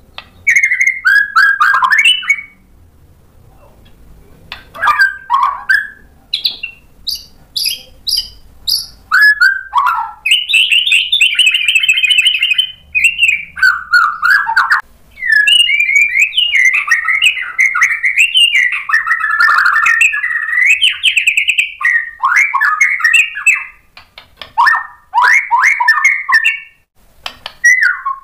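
White-rumped shama (murai batu) singing a loud, varied song full of sharp mimicked phrases: short whistled notes, rising and falling glides and fast trills. There is a short pause a few seconds in, and the song is nearly continuous through the second half.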